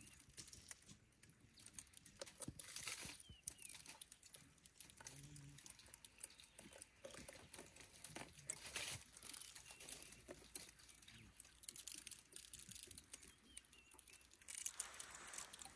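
African elephant browsing close by on a dry tree, with faint, irregular crackling and snapping of twigs and dry leaves as it strips branches into its mouth and chews.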